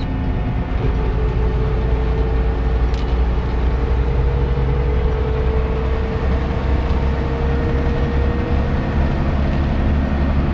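Roman diesel truck running flat out near its top speed, heard from inside the cab: a loud, steady deep engine drone, with a faint whine rising slowly in pitch as the truck gains speed.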